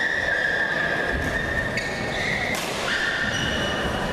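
Background noise of a crowded indoor sports hall, with a steady high whine running through it and a few faint knocks.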